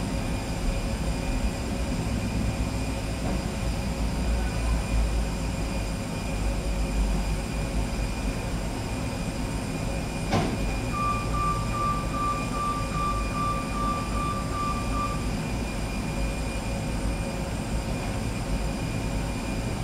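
Steady ramp noise around a parked Airbus A320 at the gate: a low rumble with a steady high whine. A sharp click about halfway through is followed by a high, slightly pulsing beep lasting about four seconds.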